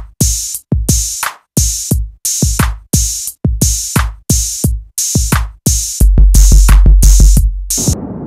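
Electronic beat from a drum machine: evenly spaced hits, each a sharp crack over a deep thud that drops in pitch. About six seconds in, a heavy held bass note comes in under quick repeated hits, then the beat cuts off suddenly into a low rumble that fades away.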